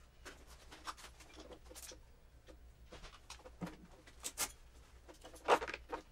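Soft rustling and a few small clicks and knocks as a uniformed police officer takes off his duty gear and sets the pieces down on a desk in a small room, with the loudest knock about five and a half seconds in.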